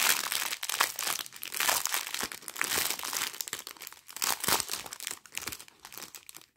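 Clear plastic packaging crinkling and rustling as it is torn open and handled, with a strip of small plastic sachets of diamond-painting rhinestones pulled out of it. Irregular sharp crackles throughout.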